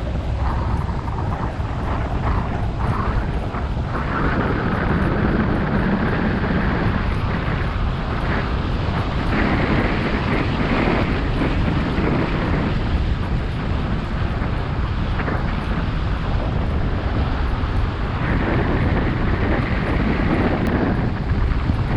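A vehicle on the move: steady engine and road noise, with wind buffeting the microphone.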